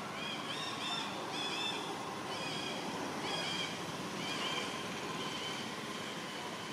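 Baby long-tailed macaque giving a rapid series of short, high-pitched calls, about two a second, that fade out near the end. These are the cries of an infant left alone by its mother.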